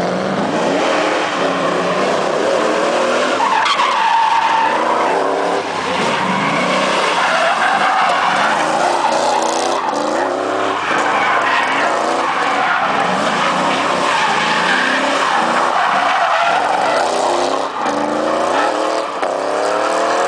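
V8 Holden Commodore drifting: the engine revs up and down over and over while the tyres squeal continuously. The revs climb again near the end.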